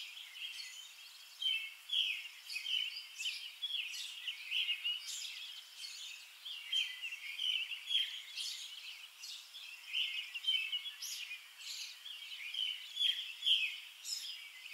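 Songbirds chirping and twittering: an unbroken run of short, high chirps.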